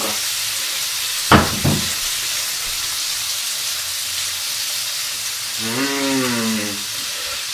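Bacon strips sizzling steadily in a frying pan, with two short knocks about a second and a half in and a brief hummed voice sound near the end.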